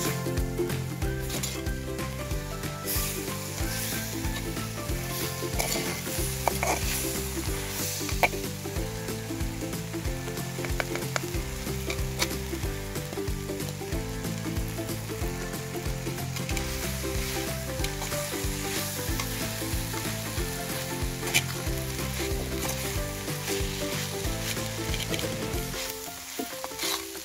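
Brinjal moju frying in oil in a pot over a wood fire: a steady sizzle, with a metal slotted spatula stirring and scraping through the eggplant, onions and chillies and now and then clicking against the pot.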